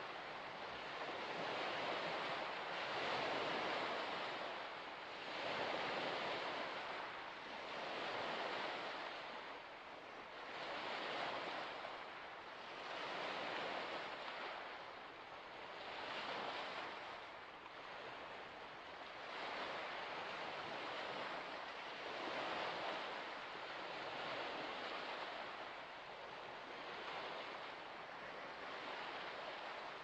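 Small waves washing onto a shore, each swell of noise rising and falling about every two to three seconds.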